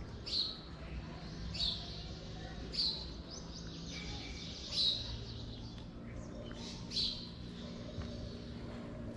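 A bird chirping: single short, sharp chirps falling slightly in pitch, repeated every one to two seconds, over a faint steady low background hum.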